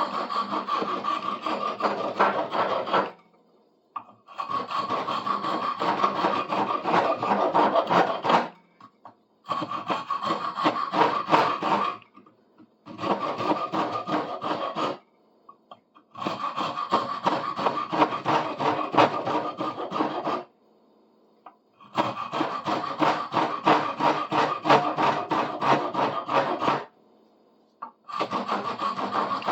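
Four-in-hand rasp filing a wooden handle, rasping in repeated bouts of a few seconds with short pauses between, about seven bouts in all, as the handle's edges are rounded down.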